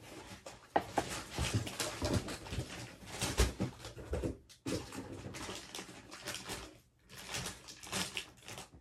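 Potato chips being crunched and chewed close to the microphone: irregular crackly crunches with two brief pauses.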